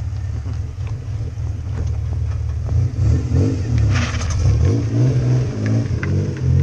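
Car engine running hard with a deep rumble, its revs rising and falling from about three seconds in as the car drifts in circles on asphalt. A brief burst of hiss comes about four seconds in.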